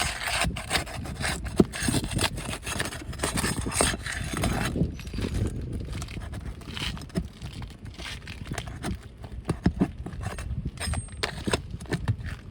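Pry bar scraping and knocking against 3-tab asphalt shingles as roofing nails are worked loose to free a damaged shingle. Steady rough scraping for the first few seconds, then scattered sharp knocks and clicks.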